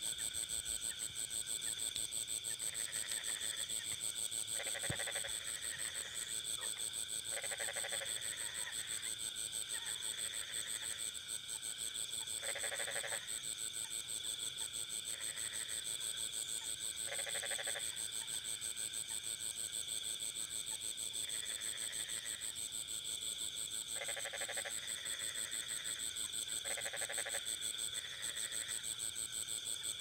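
Bullfrogs calling in a rice field: short croaking calls every few seconds, about six in all, over a steady high-pitched chorus of insects.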